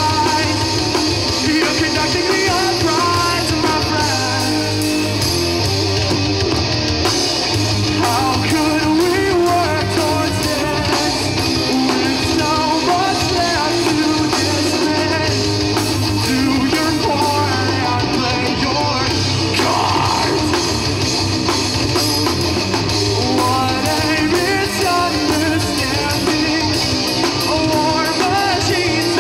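Live rock band playing, with a singer's voice over guitar and a drum kit, steady and loud throughout.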